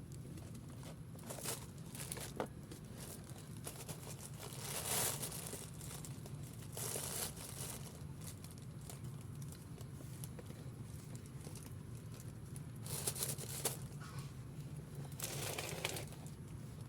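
Intermittent rustling and scraping, several bursts of about a second each, from a cat moving about against a bucket, over a steady low hum.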